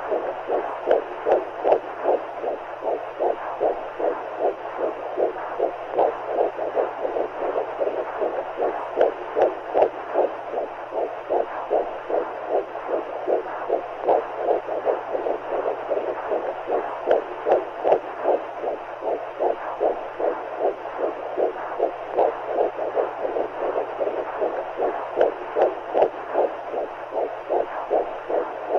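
Womb sound for soothing a baby: a muffled heartbeat pulsing evenly at about two beats a second, over a steady whooshing of fluid and a low hum.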